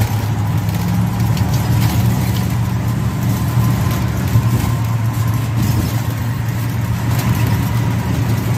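Steady low drone of an RV's engine and road noise, heard from inside the cabin while it drives along a highway.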